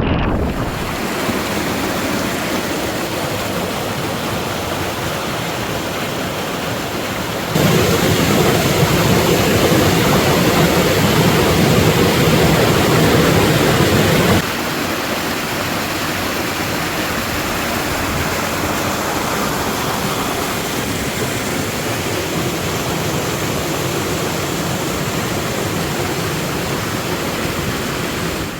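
A waterfall's steady rush of falling water; it steps up louder about a quarter of the way in and drops back about halfway through.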